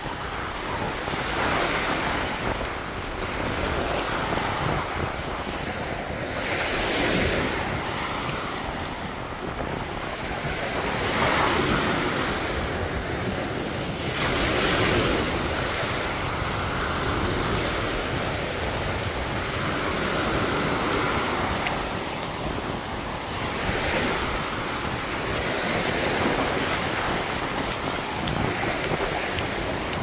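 Ocean surf breaking and washing up a sandy beach at the water's edge, a steady rush that swells every few seconds as each wave comes in, with wind buffeting the microphone.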